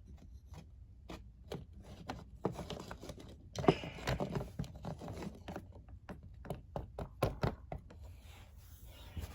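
Toys being handled and moved about on a hard surface: irregular knocks, clicks and rubbing, with a sharper knock a little before the middle.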